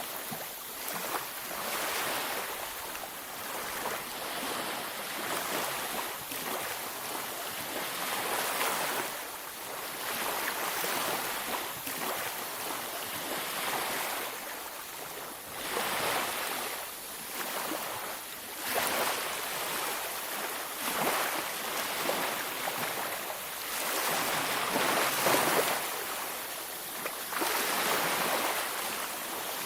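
Ocean waves breaking and washing up a beach, a steady hiss of surf that swells and eases every few seconds.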